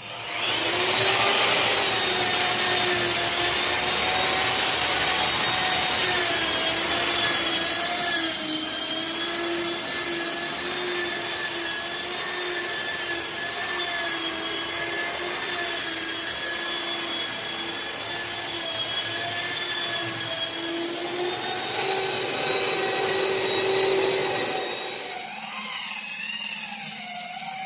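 Electric wall-putty sanding machine running, a steady motor whine over the rasp of the pad on the wall. It starts at the very beginning, and about 25 seconds in the whine wavers and the rasping thins out.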